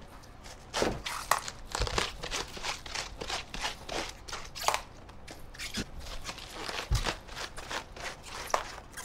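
Kitchen knife cutting the cores out of raw cabbage heads: an irregular run of crisp crunches and snaps as the blade cuts through the dense leaves and stem.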